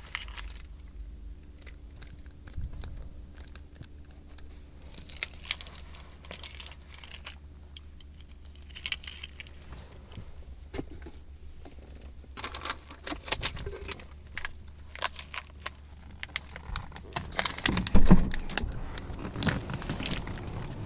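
Light metallic clinking and rattling, many short clicks in irregular clusters, over a steady low hum. A louder low rumble comes in about eighteen seconds in.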